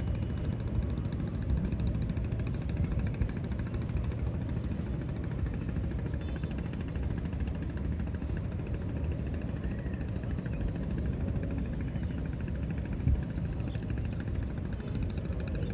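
Steady low engine rumble of a motor running at a constant speed, with no distinct events, and a single low thump about thirteen seconds in.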